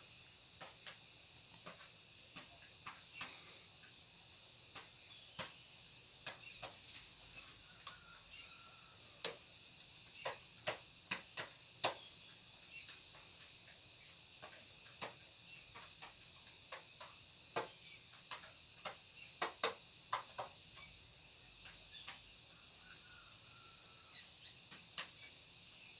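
Aseel pullet pecking at grain in a plastic crate: irregular sharp taps of the beak on the grain, often several in quick succession, over a steady high background hiss.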